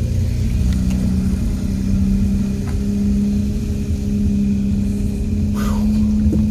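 Car engine and road rumble heard from inside the moving vehicle, the engine hum rising slowly in pitch as the car gathers speed, with a brief crackling noise about five and a half seconds in.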